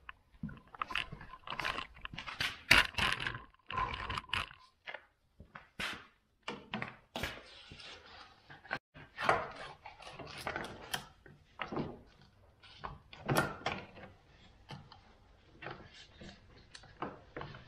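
A homemade plastic carbide cover being handled and fitted onto a snowmobile ski: irregular knocks, clicks and scrapes of plastic against the ski.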